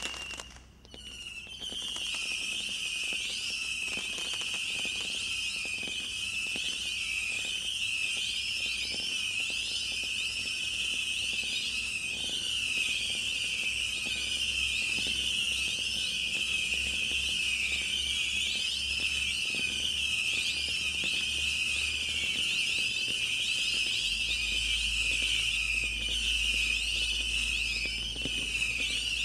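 Missile Madness multishot firework cake firing whistling pearl penlids in rapid succession: many overlapping shrill whistles, with quick crackles and bangs beneath. There is a brief lull about a second in.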